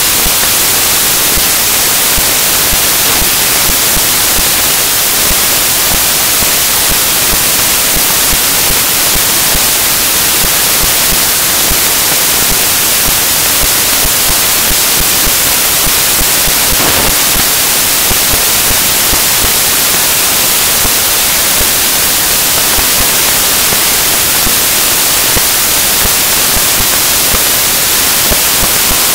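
Loud, steady static hiss, even and unbroken and strongest in the treble, with no speech in it: the recording's audio feed is carrying only noise.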